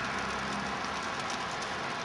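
Steady outdoor ambience during a snowfall: an even hiss with faint scattered ticks, and a faint low hum in the first half second.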